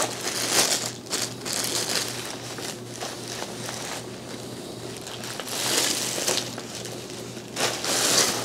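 Plastic bag crinkling and rustling in uneven surges as it is pulled off and unwrapped from a vacuum power head, loudest about two thirds in and near the end.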